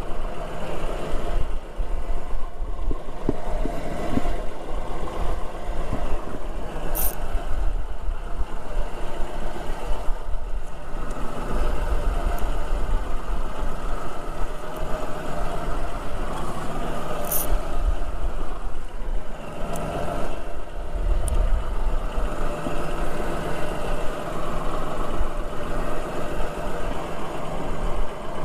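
A boat's engine running steadily, with a couple of brief high clicks.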